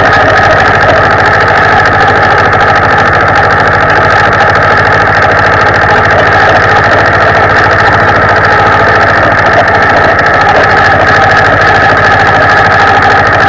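Zetor 25 tractor's two-cylinder diesel engine running steadily and loud as the tractor drives across snow.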